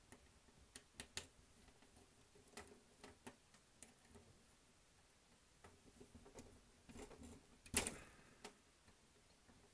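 Faint, scattered clicks and ticks of the small metal and plastic parts of an H0 model locomotive's motor as fingers work the motor shield loose, with one louder click about eight seconds in.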